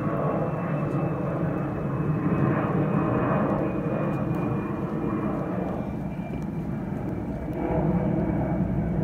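A steady rumbling drone, with a faint high whine that slowly falls in pitch.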